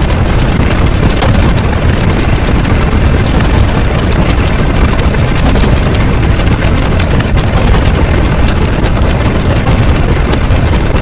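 A loud, steady rumbling noise with a heavy low end, like a large engine running.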